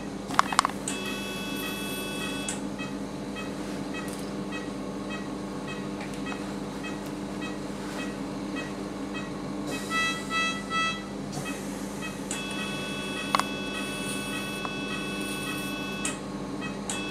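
Operating-room electronics during electrosurgery on a dog's soft palate: a patient monitor's short pulse beeps repeat about every two-thirds of a second over a steady equipment hum. An electrosurgical unit sounds its continuous activation tone while cutting, briefly about a second in and again for about four seconds in the second half, and three short beeps sound just past the middle.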